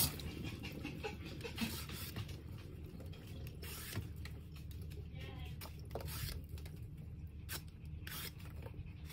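Vegetable peeler scraping strips of skin off a cucumber in a series of short, irregular strokes, with a few sharp clicks.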